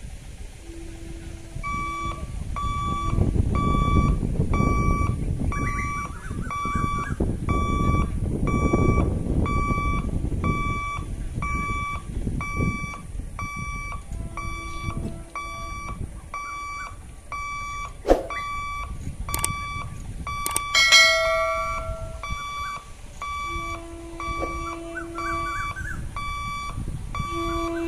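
Railway level-crossing warning alarm beeping steadily, a high electronic beep repeating a little more than once a second, the signal that a train is approaching the closed gate. Wind rumbles on the microphone in the first half, and a short louder sound breaks in about three-quarters through.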